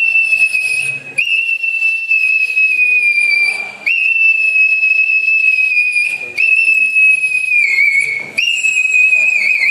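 A small dog crying in long, high-pitched whines, each held about two seconds and sliding slightly down in pitch, with a short break for breath between them; the last one wavers. Such drawn-out whining is a sign of distress.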